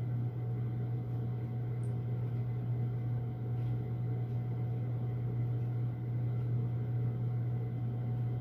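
A steady low hum with faint room noise and a few small, faint clicks.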